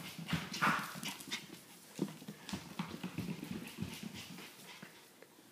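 A Coton de Tulear puppy's claws tapping quickly and irregularly on a hardwood floor as it runs, mixed with a person's footsteps in socks. The taps grow quieter near the end.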